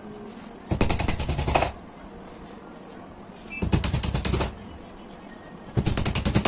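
A hammer tapping small nails into the fibreboard back panel of a flat-pack bookcase. The blows come in three quick runs of about a second each.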